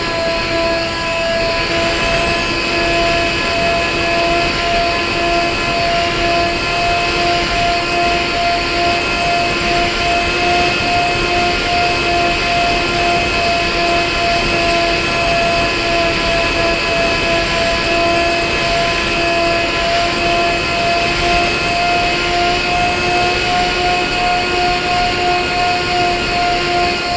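A model aircraft's motor and propeller heard from the onboard camera: a steady high whine, holding one pitch with a slight, regular pulsing, over the rush of air past the airframe.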